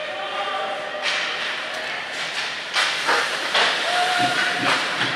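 Hockey skate blades carving and scraping on rink ice during play, a run of hissing scrapes, with a few sharp knocks from about three seconds in.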